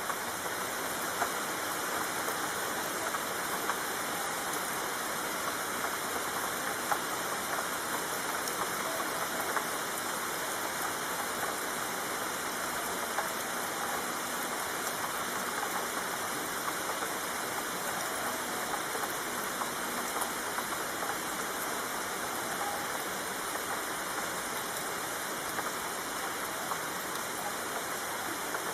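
Steady rainfall: an even hiss of rain with many small drop ticks scattered through it, unchanging throughout.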